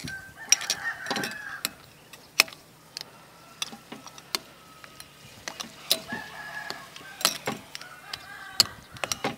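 A rooster crowing about three times, each crow lasting around a second, with scattered sharp clicks and knocks.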